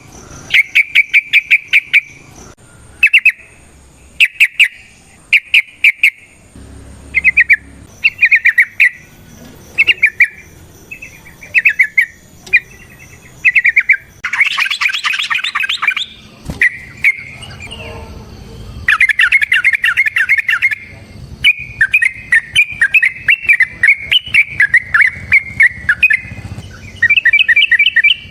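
Yellow-vented bulbul (trucukan) singing in short bursts of fast, rattling notes, about one phrase a second. About halfway through comes a harsher, louder chatter, and later a longer run of quick notes.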